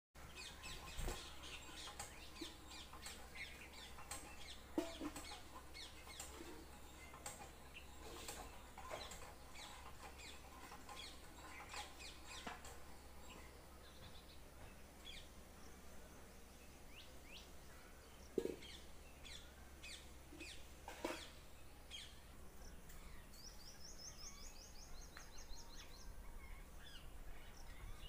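Faint calls of several birds: scattered short chirps and calls, with a fast trill of repeated high notes about 24 seconds in, over a low steady hum.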